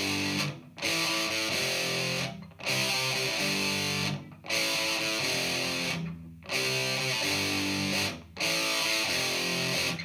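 Electric guitar played through an Exar Super Fuzz SF02 fuzz pedal: a thick, distorted riff repeated in phrases about two seconds long, each cut by a brief pause.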